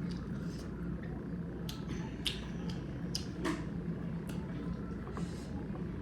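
Close-up eating sounds: irregular wet clicks and smacks of chewing and lips, a dozen or so scattered through, over a steady low background hum.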